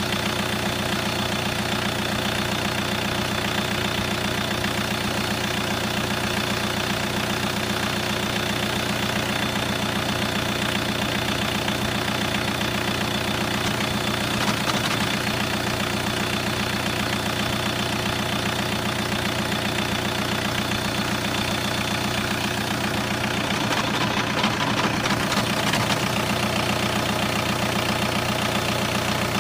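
1999.5 VW Golf TDI's 1.9-litre turbodiesel idling at about 950 rpm with a steady rapid clatter and a strange noise that the owner hears only at idle, cold or warm, and that stops just above 1000 rpm. The sound gets slightly louder about 23 seconds in.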